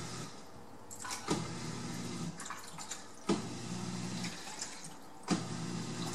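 Dishwasher drain pump running in pulses about every two seconds, each a low hum with a sharp start lasting about a second, pushing water out through the sink's drain pipes.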